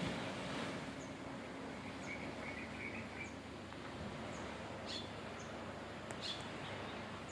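Birds chirping over a steady outdoor background hiss: a short run of chirps in the middle and a couple of brief high calls later.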